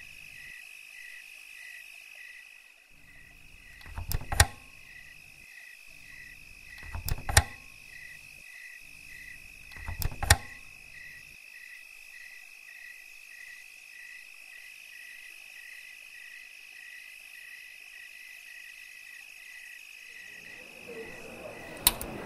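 Night insects chirping in an even pulse about twice a second over a steady high-pitched drone. Four sharp clicking crunches come about three seconds apart in the first half.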